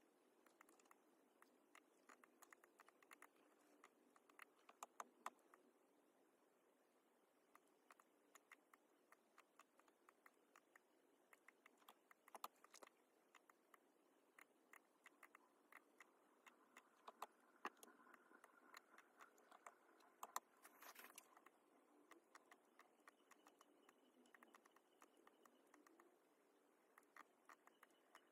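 Faint, irregular clicking of a laptop's keys and mouse buttons, sometimes several clicks a second, with a brief soft rushing sound about two-thirds of the way in.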